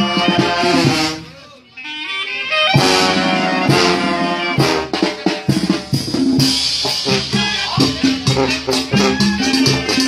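Mexican banda playing live: trombones, trumpets and clarinets over a bass drum. A held brass chord dies away about a second in, there is a brief pause, and the full band comes back in near three seconds with a steady drum beat.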